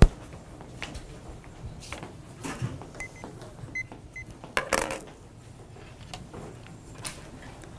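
Classroom room tone with scattered small knocks, clicks and paper handling. A few faint short high beeps come about three to four seconds in, and a louder rustle about five seconds in.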